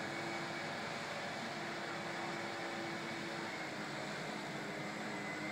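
Distant gas leaf blower running steadily: an even, noisy drone with a faint whine.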